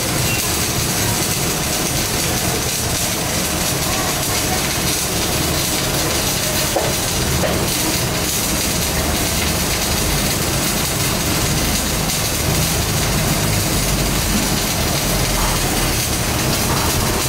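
Steady machinery noise: a continuous hiss over an uneven low rumble, with no breaks.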